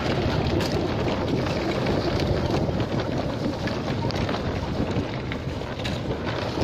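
Steady rush of wind on the microphone mixed with tyre noise from an e-bike riding over a wet dirt trail, with a few light knocks.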